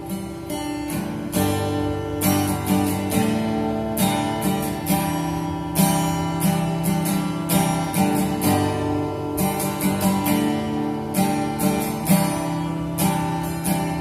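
Instrumental break in a song: acoustic guitar strumming chords in a steady rhythm over a sustained bass line.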